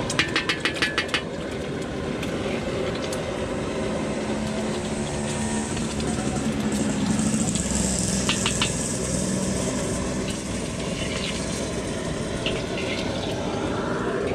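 Egg frying in a steel wok: a steady sizzle over the burner's rumble. A metal spatula raps the wok about eight times in quick succession at the start, and a few more times about eight seconds in.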